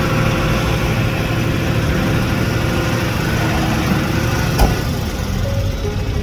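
Tow truck engine running steadily while its crane holds a car above the flatbed, with a single sharp knock about four and a half seconds in.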